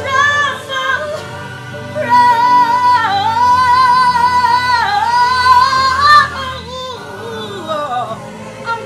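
A woman singing over backing music, with a long, wavering high note held from about two seconds in to about six seconds in.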